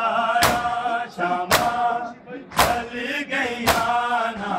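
Men chanting a noha in unison with long held notes, over a crowd beating their chests in matam: a loud collective slap about once a second, four times.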